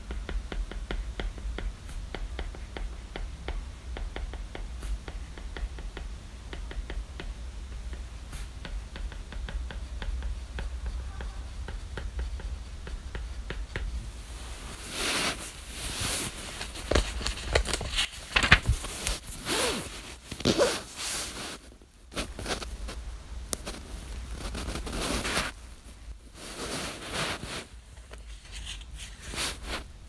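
Stylus tip tapping and scratching on an iPad's glass screen, many small quick ticks while writing. From about halfway, louder rustling of paper pages and bedding as a paperback is handled and its pages turned.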